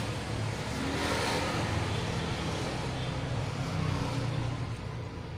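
A motor engine running nearby with a low hum, growing louder over the first second and fading away over the last second or so, like a vehicle passing.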